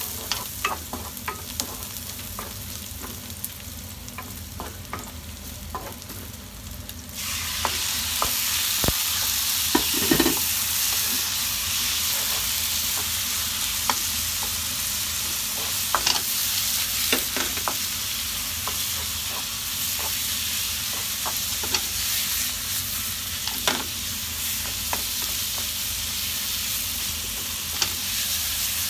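Sliced onions frying in a frying pan, stirred with a wooden spatula that taps and scrapes the pan. About seven seconds in, raw chicken pieces go into the pan and it breaks into a much louder, steady sizzle, stirred on with the spatula.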